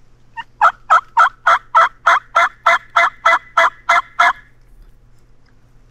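Turkey call imitating a hen: a loud series of about a dozen evenly spaced yelps, roughly three a second, then it stops, calling to gobblers that are not answering.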